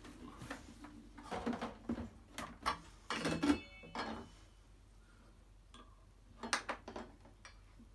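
Metal parts of a projector ceiling mount, its arms and plate, clinking and clattering together as they are handled and fitted. The clatter comes in several bunches, with a brief metallic ring about three seconds in.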